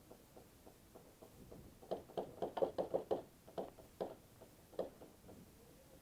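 Airsoft guns firing: a scattered string of short, fairly faint pops, a quick run of them about two seconds in, then single shots spaced out.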